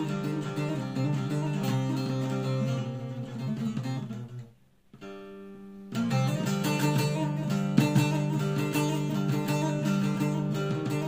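Background music played on a plucked string instrument. About halfway through it fades out almost completely, a single held chord sounds briefly, and then the playing comes back fuller.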